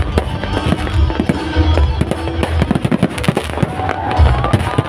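Fireworks show: a dense run of sharp bangs and crackles over repeated low booms, with music playing underneath.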